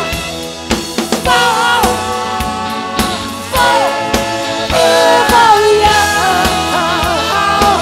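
Live rock band playing: a drum beat and band, with sustained sung or horn melody lines that bend in pitch.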